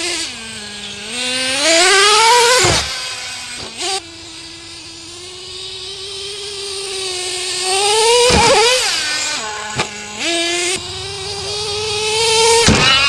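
Small two-stroke nitro glow engine of a radio-controlled monster truck, running at high revs as the truck drives. Its pitch climbs steeply and then drops off sharply about three times, with a steadier stretch in between.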